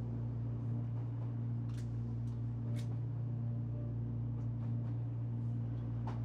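Steady low hum and rumble of a moving train heard inside the carriage, with a few faint short clicks.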